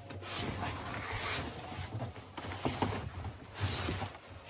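A rolled mattress in plastic wrap sliding out of its cardboard box: cardboard scraping and plastic rustling in uneven swells, with a few small knocks.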